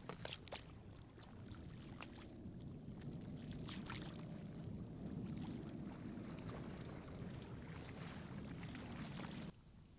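Water sloshing steadily as a hunter in waders wades through shallow lake water, with a few light knocks. It cuts off suddenly near the end.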